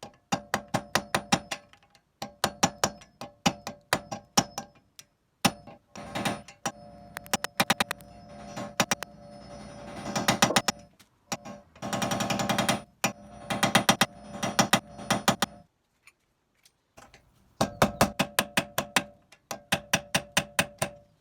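Rapid metal-on-metal hammer blows, several a second in bursts of a second or more with short pauses between, ringing each time: the front drive axle of a 2010 Toyota Corolla being knocked loose from the wheel hub.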